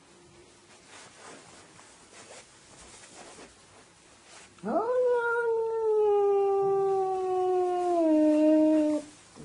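Scottish Fold cat giving one long drawn-out yowl about halfway through: it rises quickly, slides slowly down in pitch, and drops a step lower just before it breaks off.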